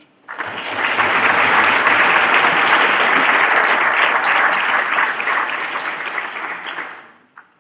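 Audience applauding: the clapping swells over the first second, holds steady, then dies away about seven seconds in.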